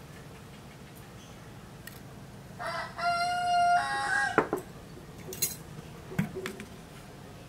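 A rooster crowing once, about three seconds in: a call of nearly two seconds, held on one note and then dropping. A few faint clicks and knocks follow.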